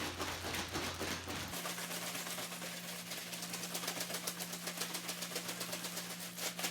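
Ice cubes rattling and clattering in rapid, continuous clicks inside a towel-wrapped gallon Ziploc bag as it is shaken hard, churning homemade ice cream in a bag of salted ice. A steady low hum runs underneath.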